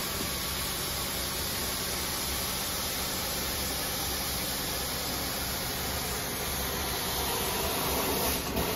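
Carpet-cleaning hot-water extraction wand being drawn across carpet, its vacuum pulling air and water up the hose with a steady hiss, over a low machine hum.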